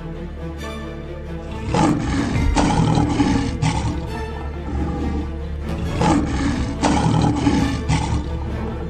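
Lion roar sound effects, repeated several times in two groups starting about two seconds in, over dramatic background music.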